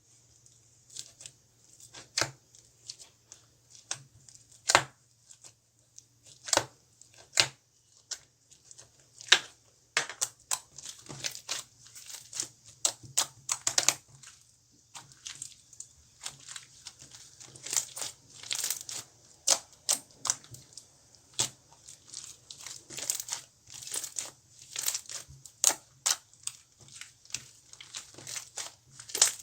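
Slime being handled and squeezed by hand, giving irregular sticky pops and clicks, at times in quick runs.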